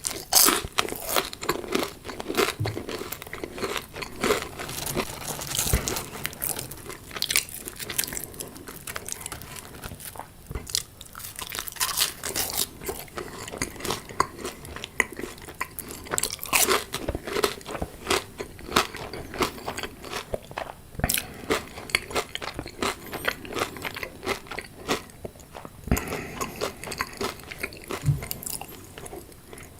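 Close-up biting and chewing of crunchy fried food: an irregular run of crisp crunches and crackles, some bites louder than others.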